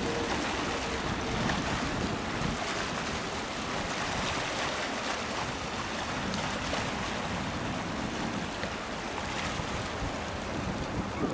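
Steady rush of wind on the microphone mixed with waves lapping on open water.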